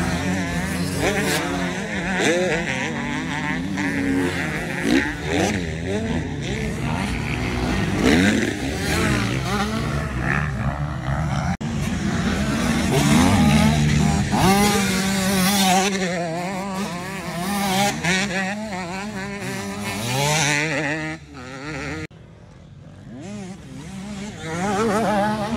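Several motocross bike engines revving, with pitch rising and falling as they accelerate and shift. The sound drops away briefly near the end.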